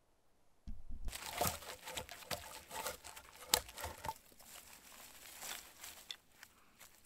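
Crinkling, crunching rustle with many small sharp clicks, starting suddenly about a second in and tapering off toward the end.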